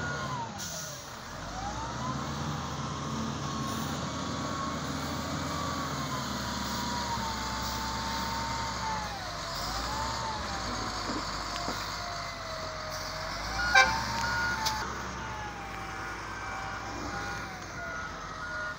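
XCMG wheel loader's diesel engine working under load, with a whine that slowly rises and falls with the revs as the bucket lifts and tips. One sharp knock about 14 seconds in, and a reversing beeper in the last few seconds.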